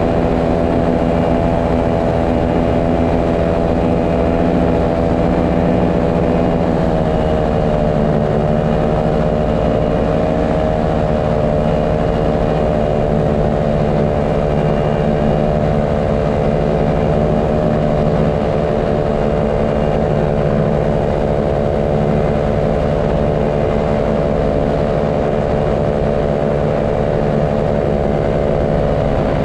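Paramotor engine and propeller running steadily in flight, with a slight drop in pitch about seven seconds in as the throttle eases.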